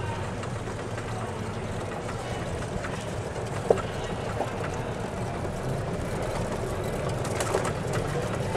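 Steady low hum of a vehicle engine running, with one short click a little under four seconds in.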